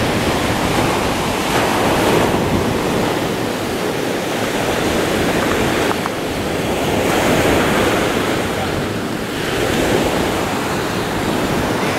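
Surf breaking and washing up the beach, with wind buffeting the microphone; the noise of the waves swells and eases every few seconds.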